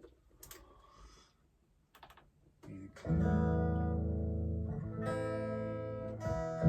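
Guitar played through a clean signal: a few faint handling clicks, then a strummed chord about three seconds in that rings out, struck again twice near the end.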